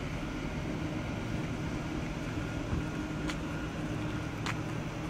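ICE high-speed train standing at the platform, its onboard equipment giving a steady hum with low tones held throughout. Two short clicks come about three and four and a half seconds in.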